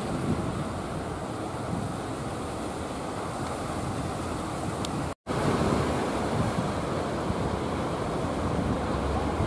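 Small surf breaking and washing over shallow water, a steady rushing noise with wind buffeting the microphone. The sound cuts out for a split second about five seconds in.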